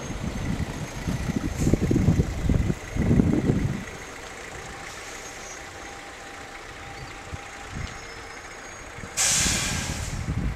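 Wind gusts buffet the microphone for the first few seconds as an irregular low rumble. Near the end comes a sudden loud hiss that fades over about a second.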